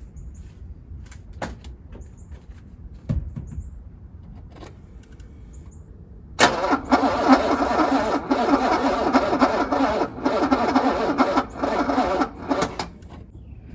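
Starter motor of a 1985 Mercedes W126 SEC's V8 cranking for about six seconds, starting about halfway through, with a rhythmic pulsing; the engine does not catch. The jump pack is low, so the engine barely turns over. Before it, a few clicks and a thump.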